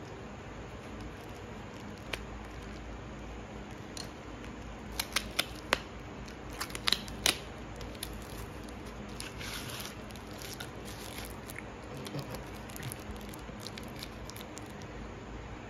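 Cardboard Toblerone box being opened by hand: sharp clicks and snaps of the card end flap, thickest about five to seven seconds in, then a crinkly rustle of the foil wrapper inside and a few more small clicks.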